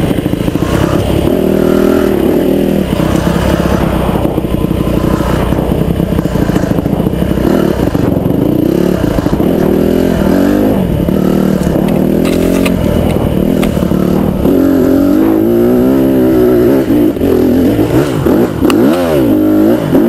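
Honda CRF150R dirt bike's single-cylinder four-stroke engine under way on a trail ride. Its pitch climbs and drops again and again as the throttle opens and closes through the gears, with a few quick throttle blips near the end.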